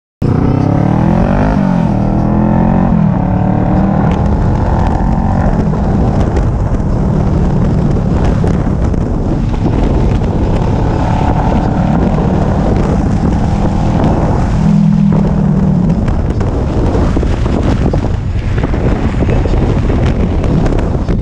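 Motorcycle engine pulling away, its pitch climbing and stepping in the first few seconds as it accelerates through the gears, then running steadily at cruising speed. Heavy wind noise on the microphone runs over it.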